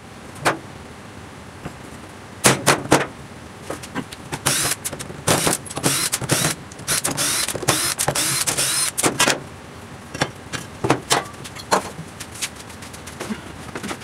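Cordless drill-driver backing screws out of a wooden forming mould, the motor spinning up in several short runs between about four and a half and nine seconds in. Sharp knocks and clicks of tools and wood being handled come before and after.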